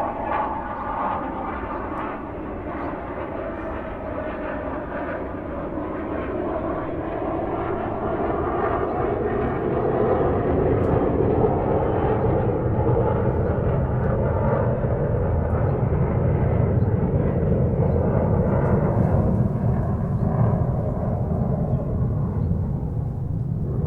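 Airplane cabin noise heard from a window seat: a steady rush of engine and airflow that grows louder and deeper about a third of the way in, then holds steady.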